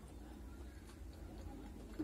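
Faint eating sounds: a few soft clicks over a low, steady hum.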